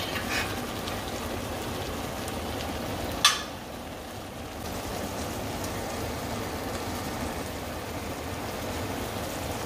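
Pumpkin pieces simmering in thick piloncillo syrup in a stainless steel pot, a steady crackling sizzle as the syrup bubbles down near the end of cooking. There is a single sharp tap about three seconds in.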